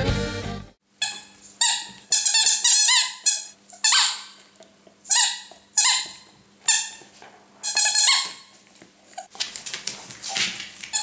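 Squeaky rubber crocodile toy squeaking over and over as a dog chews it: about a dozen short squeals that slide up and down in pitch, some in quick runs. Accordion music cuts off within the first second, and there is a scuffling noise near the end.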